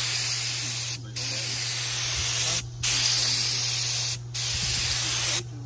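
Gravity-feed air spray gun spraying paint onto an aluminium jon-boat hull: a loud hiss in four passes of a second or so each, broken by short pauses where the trigger is let go.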